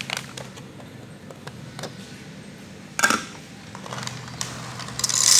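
Coffee beans being poured into the bean hopper of an espresso machine's built-in grinder, rattling. There is a sharp clack about three seconds in, and a louder rush of pouring beans near the end.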